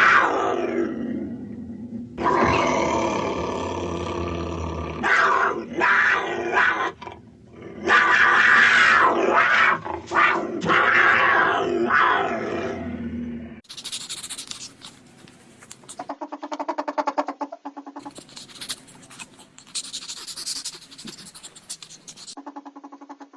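Loud animal calls, long and pitched, repeated for about thirteen seconds with short breaks, then quieter sounds of a different kind with fast rapid pulses.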